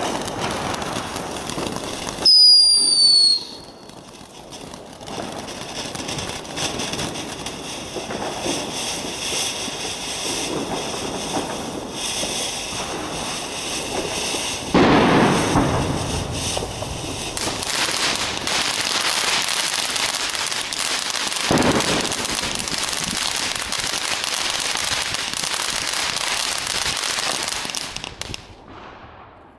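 Weco Chico Chico ground firework burning: a steady hissing, crackling spray of sparks, with a brief loud, slightly falling whistle a couple of seconds in. Louder surges come around halfway and again about two-thirds through, and the sound dies away near the end.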